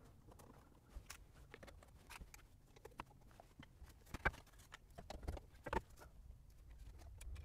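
Faint, irregular clicks and taps of screws and a screwdriver as a gauge cluster is screwed back into a truck dashboard.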